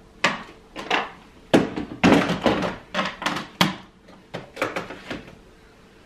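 Plastic cleaning bottles and containers handled in the plastic bin inserts of a pull-out cupboard: a series of irregular sharp clunks and short rattles, busiest in the first few seconds.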